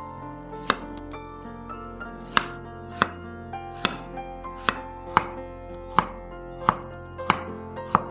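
Chef's knife slicing a peeled carrot thinly on a wooden cutting board: a sharp chop about once a second, over soft background music.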